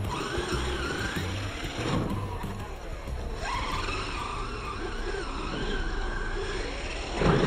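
Small radio-controlled car's electric motor whining, its pitch rising and falling as the car speeds up and slows, with tyre skidding, music underneath, and a short louder burst of noise near the end.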